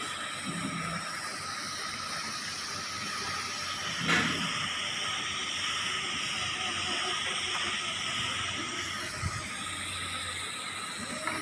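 TIG welding arc on thin stainless steel pipe, giving a steady hiss, with a short click about four seconds in.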